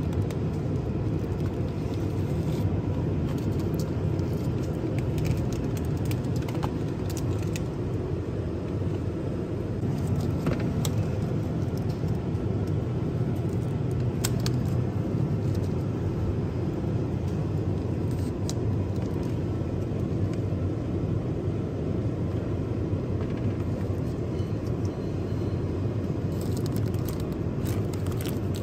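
Steady low rumble of background noise, with scattered light clicks and crinkles from plastic food containers being handled.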